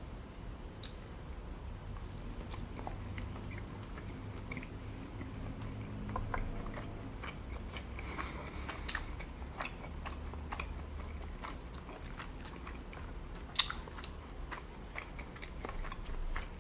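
Close-miked chewing of a sushi roll: soft, wet mouth sounds with many small clicks, and one sharper click about three seconds before the end.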